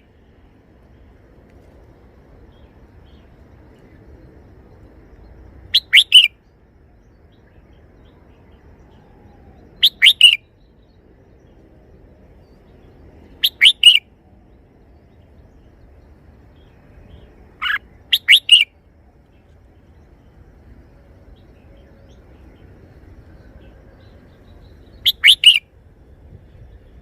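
Red-whiskered bulbul singing a short three-syllable song phrase, repeated five times at gaps of about four seconds.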